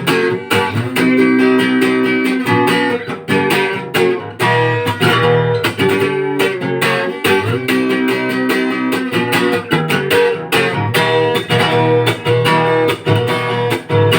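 Guitar strumming chords in a steady rhythm, an instrumental passage with no singing.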